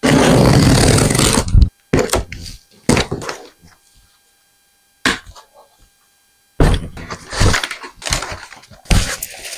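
Large cardboard box being opened: a loud rip lasting about a second and a half as the top is torn open, then a few sharp knocks, and near the end a run of scuffs and knocks as cardboard flaps and an inner cardboard insert are folded back and lifted.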